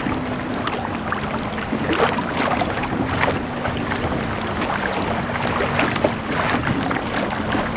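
Water splashing and sloshing around a kayak on the open sea, with wind buffeting the microphone: a continuous crackling wash at a steady level.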